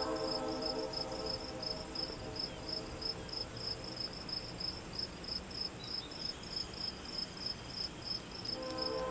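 Crickets chirping in an even, high-pitched pulse about three times a second over a faint hiss. A held chord of steady tones fades out just after the start and swells back in near the end.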